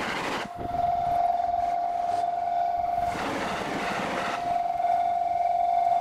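Level-crossing warning bell ringing as a steady tone, twice drowned out by the rush of a train passing over the crossing: near the start and again from about three seconds in.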